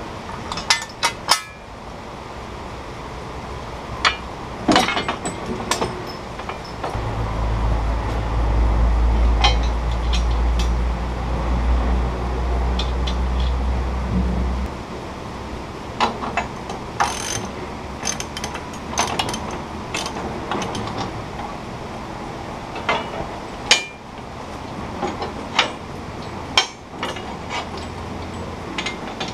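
Scattered metal clicks and clinks of a ratchet wrench working a bolt on a steel sawmill bracket. A low rumble runs for several seconds in the middle.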